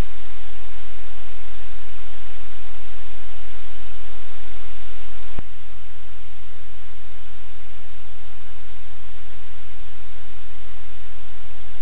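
Steady loud static hiss with a low hum underneath. One click about five seconds in, after which the hiss is slightly quieter.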